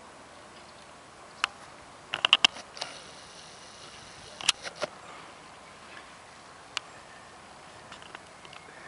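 A few sharp, irregular clicks and taps, a quick cluster of them about two seconds in and single ones later, over a faint steady outdoor background.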